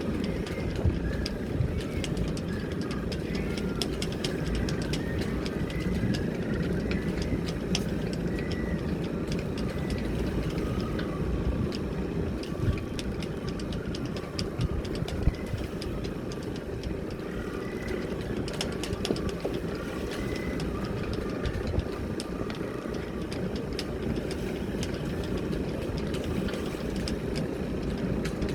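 Steady low rumble of strong wind buffeting the microphone, over a boat's engine running at idle. Faint short chirps and scattered light clicks come and go above it.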